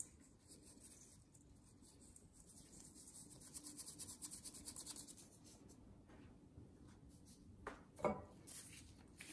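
Faint scratchy rubbing of a chicken bouillon cube being crumbled between gloved fingers over a bowl. The quick strokes grow busiest about halfway through.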